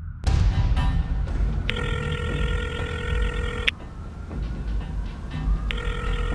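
A telephone ringing twice, each ring lasting about two seconds with a pause of about two seconds between them, over low background music.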